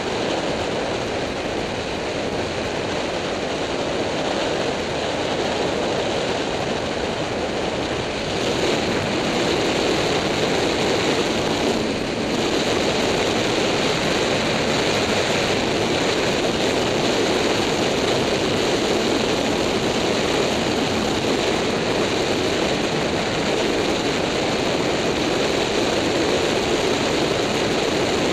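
Steady wind rush and riding noise from a Yamaha FZ6-R sport motorcycle at road speed, heard on a camera on the bike, the engine blended into the wind. It gets a little louder about eight seconds in.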